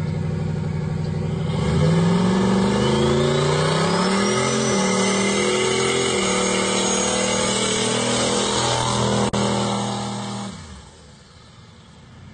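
Muscle car engine revving hard and held high through a burnout, the rear tyres spinning on the pavement; the sound drops away well before the end.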